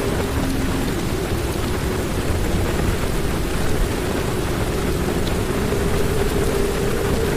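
Heavy rain drumming steadily on a car's roof and windows, heard from inside the car, with a faint steady hum underneath.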